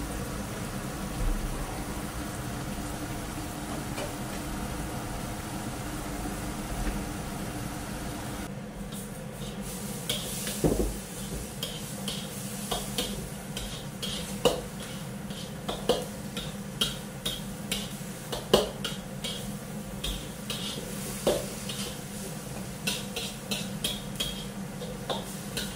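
Chopped banana stem pith bubbling and sizzling in a wok as its water boils off. From about eight seconds in, a metal spatula scrapes and clinks against the wok again and again as the pith is stirred.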